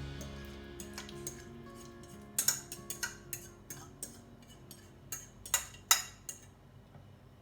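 Soft background music with a handful of sharp clinks and knocks of kitchen utensils against dishes, bunched together in the middle, the music fading toward the end.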